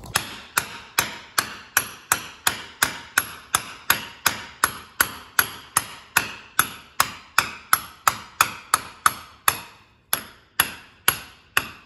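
Hammer blows driving the old oil seals out of a tractor PTO gearbox cover held in a bench vise: a steady run of sharp strikes, about three a second, with a short pause near the end and then a few more.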